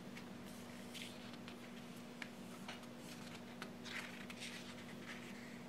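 Faint rustle of paper sticker-book pages being turned and handled, with soft sweeps about a second in and around four seconds in and a few light paper clicks, over a low steady hum.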